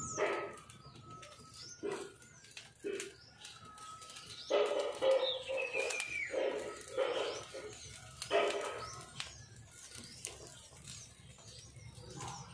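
Birds calling: a few short low calls, most of them in a cluster about halfway through, over faint high chirping.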